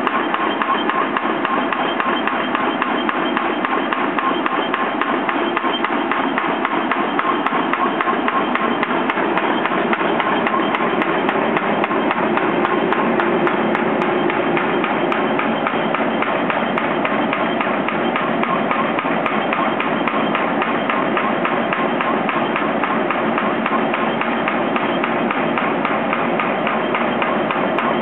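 Air-powered pile hammer driving timber piles, a rapid, steady hammering that runs without a break.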